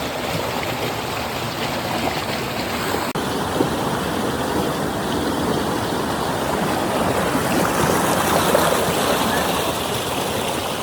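Flowing water rushing steadily, a stream or small waterfall. About three seconds in it breaks off for an instant and carries on with a slightly different tone.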